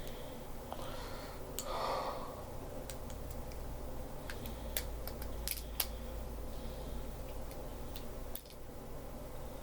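Scattered small plastic clicks and handling noises from fitting the batteries and battery compartment of a Lego Mario figure, over a low steady hum, with a short breath or rustle about two seconds in.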